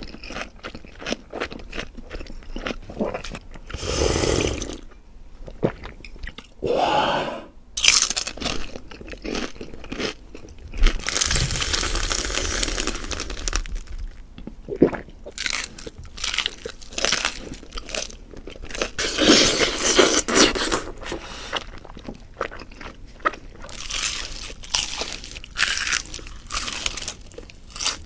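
A person eating close to the microphone: bites and loud, irregular crunching and chewing of food.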